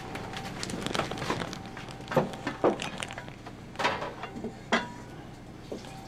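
Kitchen clatter: metal pots and dishes knocked and handled while food is worked in a large aluminium pot, with rustling and a handful of sharper knocks over a faint steady hum.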